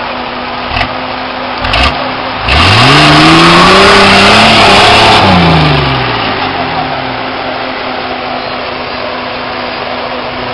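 Nissan Patrol GR Y60's 4.2-litre diesel engine working under load on a steep climb: a couple of short knocks, then about two and a half seconds in it is revved hard, the pitch climbing for about two seconds and holding before falling back to a low steady run.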